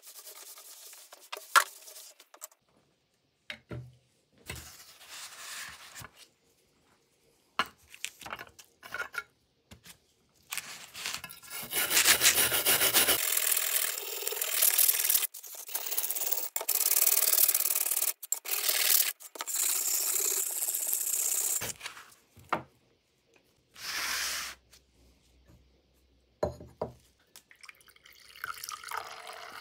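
Abrasive rubbing and scraping on the rusty steel blade of a masonry trowel during rust removal: scattered short scrapes and taps, then a long, loud stretch of stop-start scraping broken into edited chunks, with one more short burst after it.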